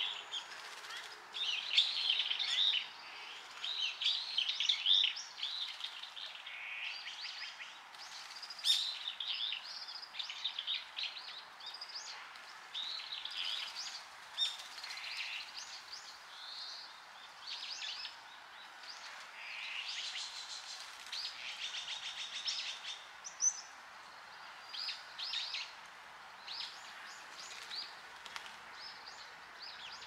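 Small birds chirping and singing in repeated short bursts over the steady sound of a flowing stream.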